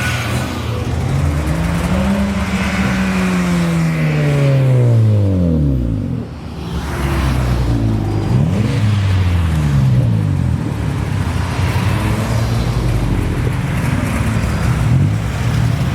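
Car exhausts of vehicles driving past one after another, each engine note rising and then falling in pitch as it goes by. The loudest pass comes about five seconds in, with another car going by a few seconds later.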